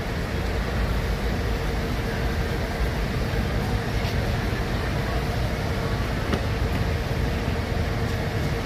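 Diesel coach engines running: a steady low rumble with a steady mid-pitched hum over it.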